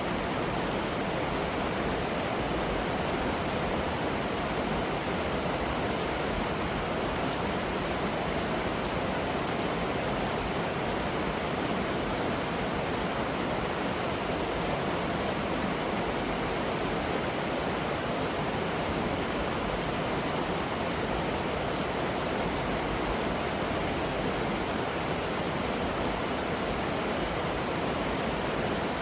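Roadside waterfall rushing steadily, an even, unbroken wash of falling water.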